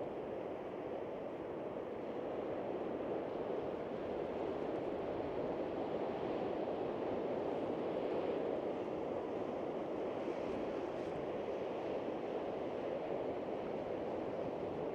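Waves on Lake Ontario washing against the shore with wind: a steady rush that swells slightly about six to nine seconds in.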